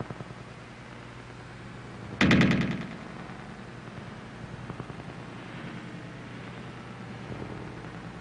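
A short, loud burst of rapid sharp cracks, about fifteen a second, lasting under a second, about two seconds in, over a steady low hum.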